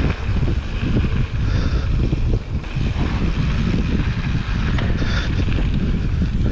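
Wind rushing over the microphone and tyres rolling on wet dirt as a Santa Cruz Hightower mountain bike descends a trail, with frequent small knocks and rattles from the bike over rough ground.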